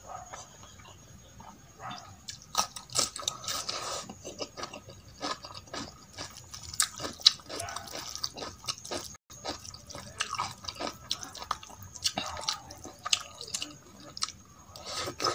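Wet squishing and sticky clicks of fingers mixing rice with masoor dal on a steel plate, mixed with close chewing and lip smacks, in short irregular bursts.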